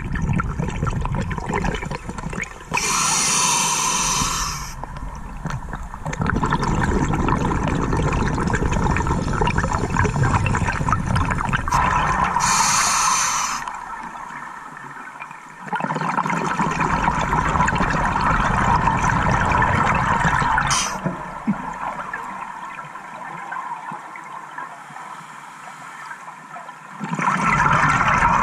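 Scuba diver breathing through a regulator underwater. A short sharp hiss of inhalation is followed by a long gurgling rush of exhaust bubbles, and the cycle repeats about every nine seconds.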